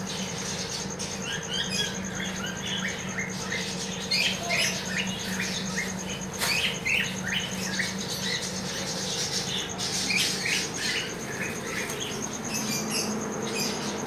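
Many high, short squeaks and chirps from small caged animals, coming in quick clusters over a steady low hum.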